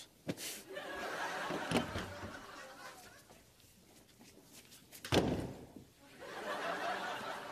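Studio audience laughter from a sitcom laugh track, rising and fading twice, with a sharp thump about five seconds in.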